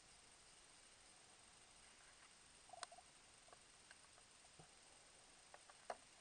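Near silence underwater: a faint steady hiss with a few soft, scattered clicks and ticks, the loudest about three seconds in and again near the end.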